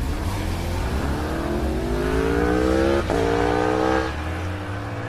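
Motorcycle engine accelerating with its note climbing, a quick upshift about three seconds in, then the throttle closes about a second later and the engine note drops back and eases away.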